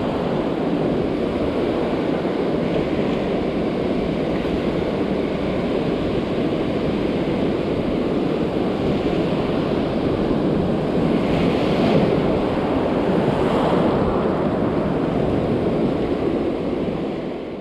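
Ocean surf breaking and washing up a sandy beach, a steady rush of waves with wind on the microphone. The surf swells a little louder about eleven to fourteen seconds in.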